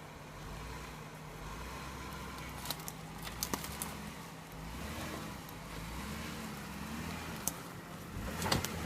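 Jeep Wrangler Unlimited Rubicon's V6 engine running at low revs while it crawls over rock, its pitch wavering slightly. There are a few sharp clicks and cracks, the loudest near the end.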